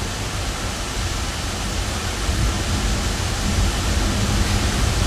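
Steady rushing noise with a deep rumble, growing slightly louder after about two seconds.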